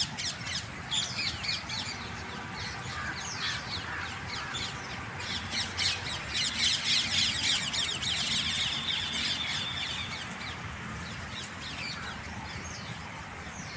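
Many birds chirping and calling at once in a dense morning chorus of quick, overlapping chirps, with one longer held note about two-thirds of the way through.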